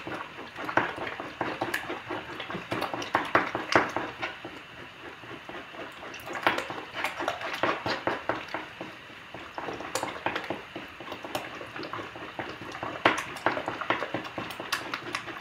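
A fork whisking raw eggs in a well of flour on a wooden board, beating the yolks into the whites. The tines make a quick, irregular run of wet clicks and ticks through the liquid egg.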